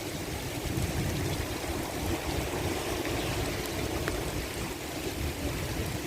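Steady rushing noise of wind and water, with wind gusting on the microphone. It comes from the rain and wind over the river.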